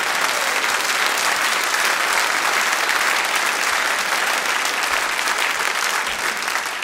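Theatre audience applauding: a steady round of many hands clapping that starts to die down near the end.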